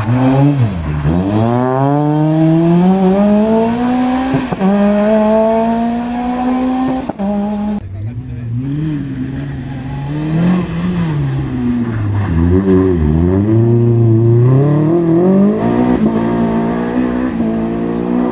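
Rally car engines at full throttle. The first car accelerates away through the gears, its note climbing with an upshift about four seconds in and another near seven seconds. A second car then approaches, its revs rising and dropping several times as it brakes and blips down the gears into the hairpin, then climbs again as it accelerates out.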